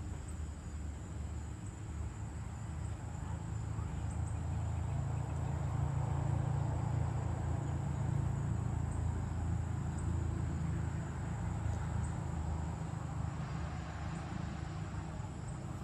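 Motor-vehicle engine rumble from road traffic, swelling for several seconds midway and then easing off, over a thin steady insect drone.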